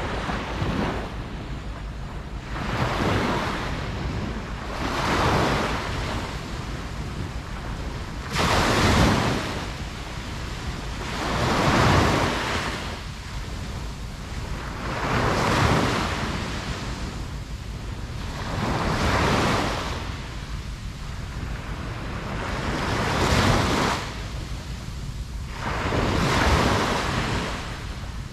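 Ocean waves breaking on a beach: the surf swells and washes out again about every three to four seconds, over a steady low rumble.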